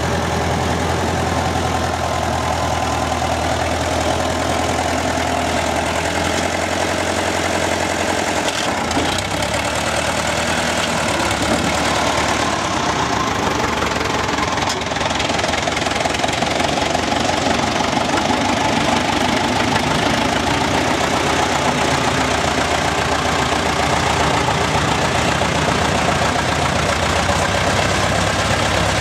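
Engine running steadily, its low note shifting about nine seconds in.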